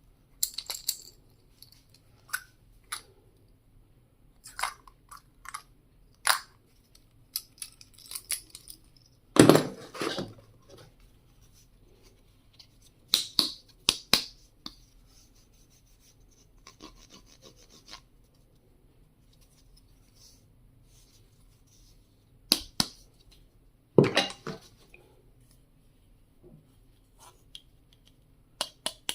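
Stationery items being handled: irregular knocks, clicks and rubbing as small pieces are picked up, opened and set down. The loudest knocks come about nine and a half seconds in and again near twenty-four seconds.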